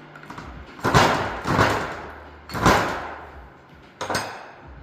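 About four heavy hammer blows, each ringing briefly, driving a stub shaft out of a Toyota Celica GTS limited-slip differential case.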